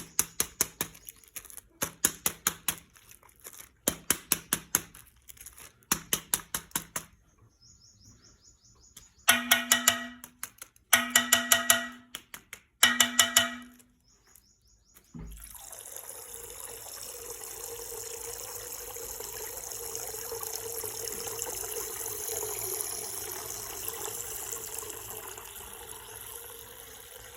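Coloured water pouring and gushing steadily out of a torn plastic ice-pack bag, starting suddenly about halfway through. Before it come several short bursts of rapid clicking, a few with a buzzing tone under them.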